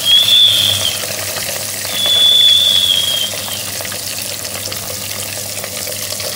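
Logo-intro sound effect: a steady sizzling hiss with two high whistling tones over it. The first tone is short and comes at the start; the second is longer, comes about two seconds in and dips slightly as it ends.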